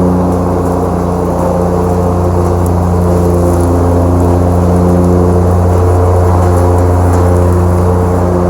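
Exmark Lazer Z 72-inch zero-turn mower's engine running steadily at mowing speed, its pitch wavering briefly about six seconds in.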